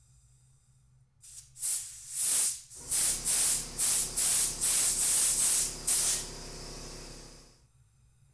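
A run of about a dozen short spray hisses, two to three a second, then a steadier, quieter hiss that fades out.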